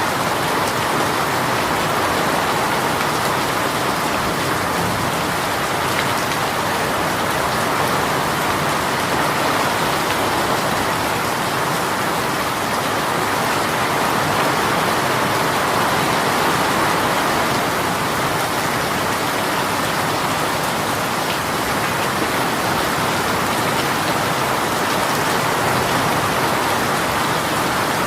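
Rain shower falling steadily, an even, unbroken hiss of rain with no letup.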